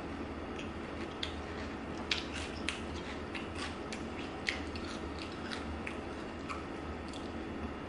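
Mouthful of Sour Patch Kids cereal in milk being chewed, with irregular crisp crunches several times a second.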